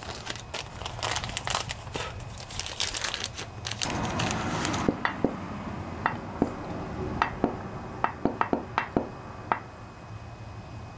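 Crinkling and rustling, like plastic or paper being handled, for about the first four seconds, then a series of light clicks and taps as a small brush works oil into the seal bore of the aluminium sump cover.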